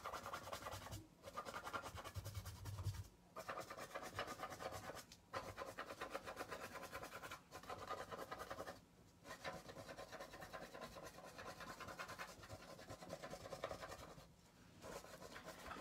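Gloved fingertips scratching and rubbing wet acrylic paint across a canvas: faint, rapid scratchy strokes in runs broken by brief pauses.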